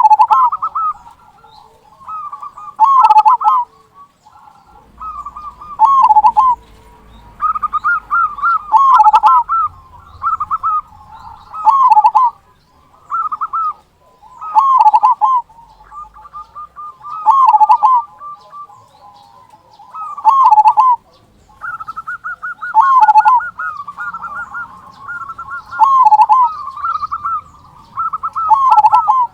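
Zebra dove (perkutut) cooing over and over in short phrases about every two and a half to three seconds. Each phrase ends in a loud, deep 'kung' note, the big kung prized in a local perkutut.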